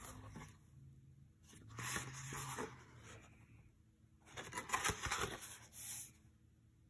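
Paperback book handled in the hands: its card cover flexes and its paper rustles in two spells, about two seconds in and again, louder, around five seconds in.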